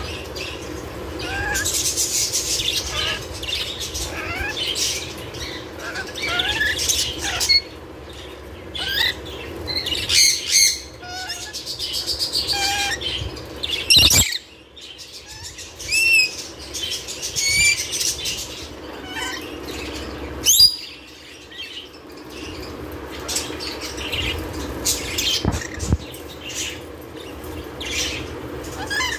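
Caged lorikeets giving short, squeaky rising chirps and screeches, with wing flapping and rustling against the cage. There is one sharp knock about halfway through.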